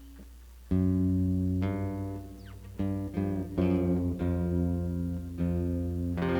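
Amplified guitar starting to play about a second in: a series of chords struck roughly once a second, each ringing on.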